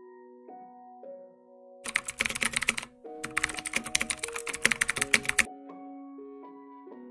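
Rapid computer keyboard typing in two runs, a short one about two seconds in, then after a brief break a longer one lasting about two seconds, over soft piano background music.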